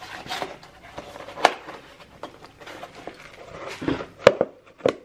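Handling of a plastic takeaway container and metal cutlery at a table: rustling with scattered clicks and knocks, the sharpest about one and a half, four and five seconds in, the one about four seconds in the loudest.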